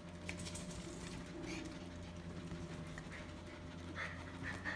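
Three-week-old puppies playing and wrestling, with soft scuffling and a few short, high squeaks near the end, over a steady low hum.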